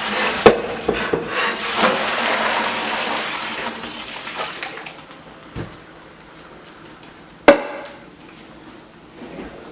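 Hot cooking water pouring out of a pot as boiled cabbage is drained, with knocks of the pot; the pour tapers off after about four seconds. A single sharp metal clank of the pot rings out near the end.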